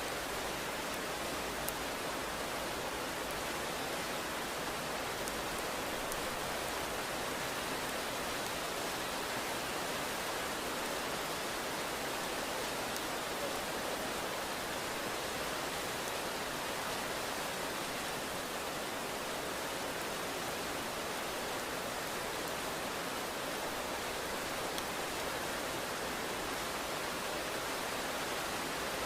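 Steady rain falling, an even hiss that holds at one level with no thunder.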